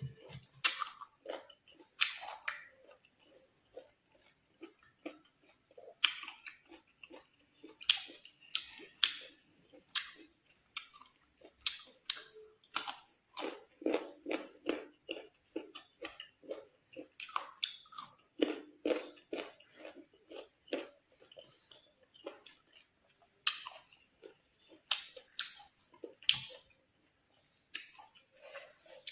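Crisp crunches of raw green mango being bitten and chewed close to the microphone, dozens of irregular bites and chews one after another.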